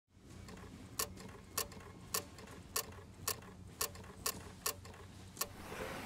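Logo-animation sound effects: a run of nine sharp mechanical clicks, about two a second, over a low steady hum, then a swelling whoosh near the end.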